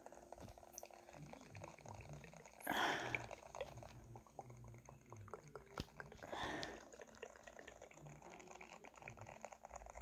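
Faint handling noise from a phone held right at a studio microphone: scattered small clicks and taps of fingers on the device, with two short soft rushes of noise, about three seconds in and again near six and a half seconds.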